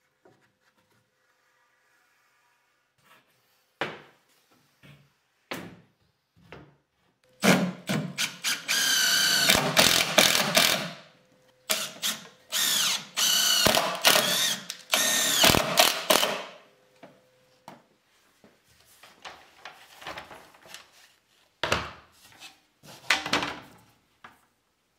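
Cordless drill-driver driving screws into a wooden workbench frame: two runs of a few seconds each, the motor whine rising and falling in pitch. Scattered knocks and clicks of handling come before and after.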